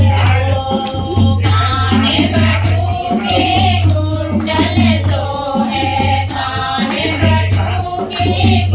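Kumauni badhai geet, a celebratory folk song, sung over a steady, evenly repeating drum beat.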